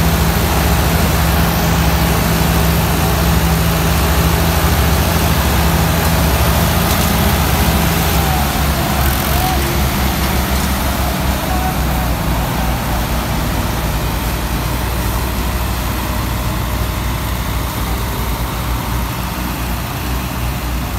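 Heavy diesel engines of Indo Farm tractors and a combine harvester running hard under load as the tractors tow the combine out of soft ground where it got stuck. The engine note shifts about nine seconds in.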